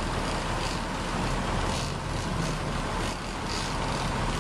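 A sport-fishing boat under way while trolling: a steady low engine drone mixed with the rush of wind and water.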